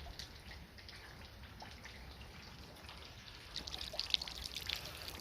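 Faint dripping of meltwater from thawing ice, scattered drips that come more often near the end.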